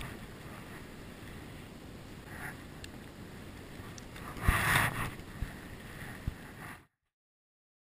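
Steady low rumble of outdoor wind on the microphone, with a brief louder rustling rush about four and a half seconds in and a couple of small clicks from handling the spinning rod and reel. The sound cuts off sharply about seven seconds in.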